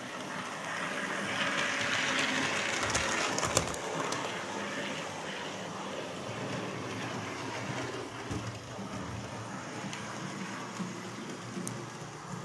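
Model railway locomotive running around the layout: a steady whirr and rattle of motor and wheels on the track, louder for the first few seconds as it comes past, with one sharp click a few seconds in.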